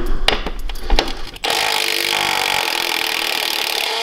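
Milwaukee M12 Fuel cordless impact wrench hammering steadily for about two and a half seconds, starting about a second and a half in, as it works loose the engine mounting bolts under a pressure washer deck. A few light knocks of the tool being set on the bolt come before it.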